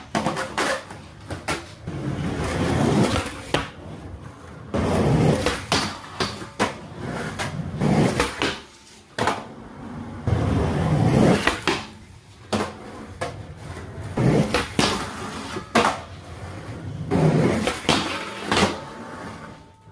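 Skateboard on a concrete floor: wheels rolling with a low rumble, broken by repeated sharp clacks and knocks from the tail popping and the board landing.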